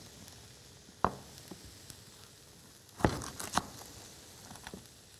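Chef's knife chopping a carrot on a wooden cutting board: a single knock about a second in, then three quick knocks around three seconds in.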